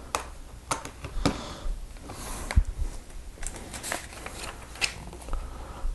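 Small plastic Lego pieces clicking and tapping as they are handled and pressed together: a handful of sharp, scattered clicks, with a brief soft rustle about two seconds in.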